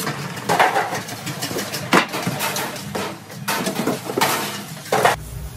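Stainless steel steam-table pans clattering and knocking in a dish sink while water splashes, with two sharp metal clanks, one about two seconds in and one near the end.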